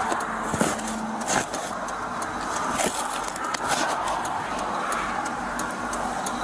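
Steady traffic and vehicle noise, with scattered knocks and rustles as gloved hands move cardboard boxes in a car trunk.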